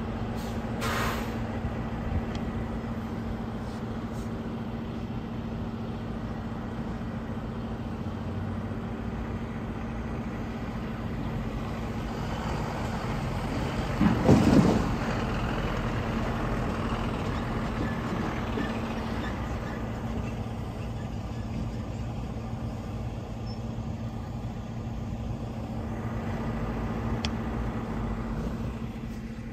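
Diesel delivery trucks idling, a steady engine hum with a constant low tone. About halfway through comes one loud burst lasting about a second.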